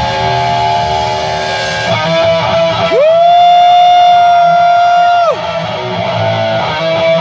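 Live rock band playing over an outdoor PA, with guitars, heard from the crowd. About three seconds in, a long held note slides up into pitch, holds for a couple of seconds as the loudest part, then drops away.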